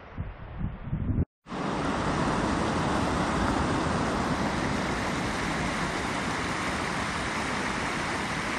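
A few low thumps, then, after a sudden cut, a steady rushing noise of a vehicle on the road.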